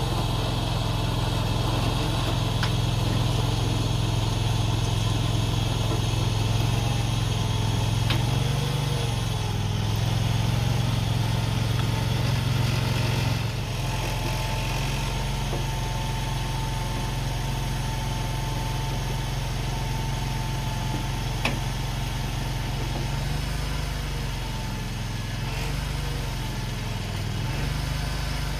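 Mini skid steer engine running steadily while it drags a heavy pole on a chain, its pitch dipping and recovering about a third of the way in and again near the end as the load or throttle changes. A faint thin whine joins for several seconds in the middle.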